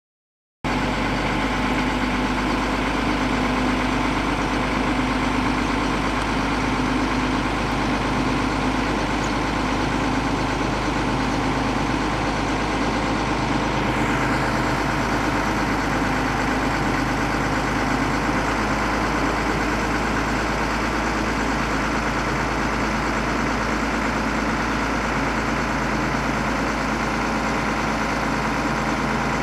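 Diesel engine of a 1989 Ford F800 crane truck, a Ford 6.6L six-cylinder, running steadily at idle. It cuts in abruptly about half a second in.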